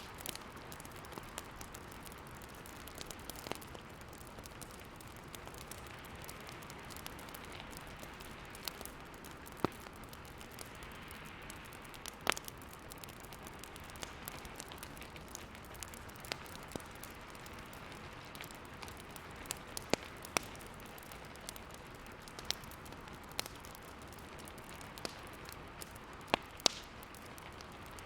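Wood fire crackling, with irregular sharp pops scattered through it, over the steady hiss of a snowstorm.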